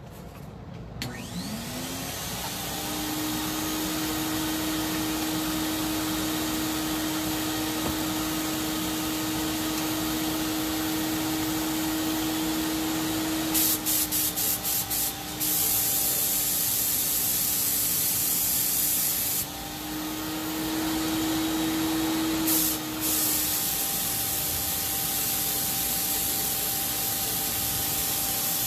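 Graco FinishPro HVLP 9.5 turbine paint sprayer starting up with a rising whine, then running with a steady hum and air hiss. About halfway through, a few short spurts of spray as the trigger is pulled, then longer stretches of spraying hiss as paint is laid on.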